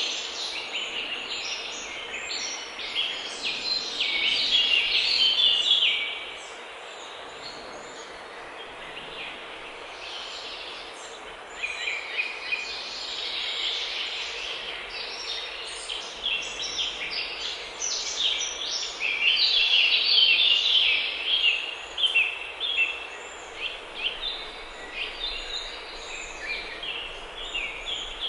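Birds singing and chattering in repeated bouts of quick, high notes over a steady background noise.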